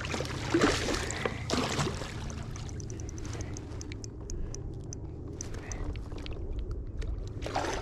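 Water splashing and sloshing beside a kayak while a hooked catfish is played on a spinning rod, with scattered small clicks over a steady low hum.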